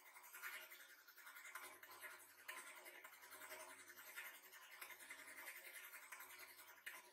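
Hydraulic press running with a faint, steady electric buzz and hum while its ram holds down on crushed fruit pulp.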